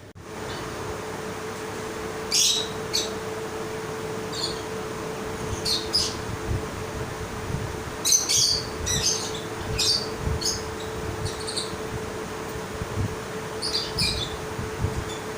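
Birds calling in short, sharp chirps and squawks, scattered irregularly and sometimes in quick clusters, over a steady low hum.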